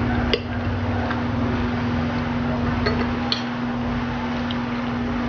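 A few light clinks of a spoon against a bowl while eating, over a steady hum and even background noise.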